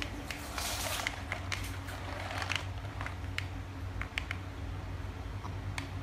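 Homemade cardboard RC truck driving and turning on a tile floor: its small electric drive motor gives a steady low hum, with scattered light clicks and rattles from the wheels and plastic parts.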